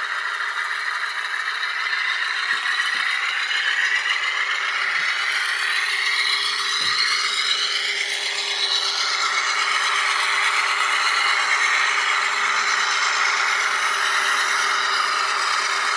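Diesel engine sound of a GE Dash 8-40C locomotive played by an ESU LokSound 5 Nano decoder through the tiny speaker of a running N scale model, its pitch gliding up and down in the middle as the engine sound changes notch.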